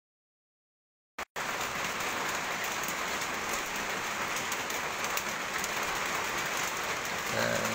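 Steady rain falling, an even hiss. The sound drops out completely for about the first second, then the rain returns.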